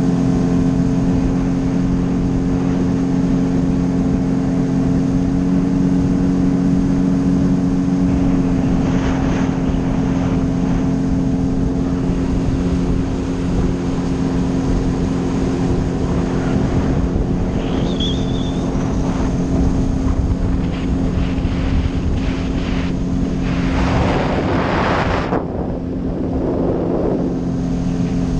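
Sea-Doo personal watercraft engine running steadily at cruising speed, a constant drone. Louder rushes of water spray and wind come about ten seconds in and again near the end.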